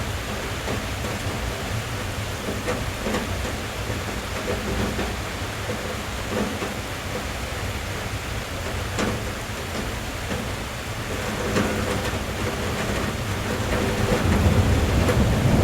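Rain pattering steadily on a car's roof and windows, heard from inside the cabin, with scattered individual drop ticks. A low rumble swells near the end.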